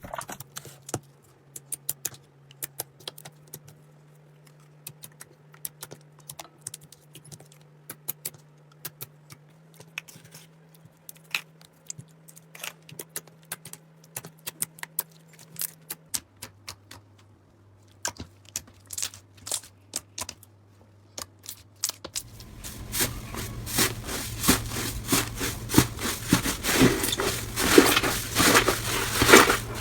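Slime being handled: scattered small sharp clicks and pops, turning into a dense, louder crackling about two-thirds of the way through.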